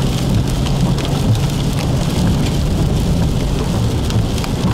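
Heavy rain mixed with hail hitting the car's roof and windshield: a dense steady hiss with many scattered sharp ticks, over the car's low steady running hum.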